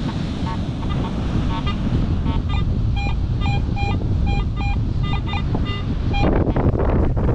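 Garrett AT Pro metal detector giving a string of short electronic beeps, some stepping quickly between two pitches, as its coil sweeps over the sand and passes buried metal. Wind noise rumbles on the microphone throughout, with a louder rush near the end.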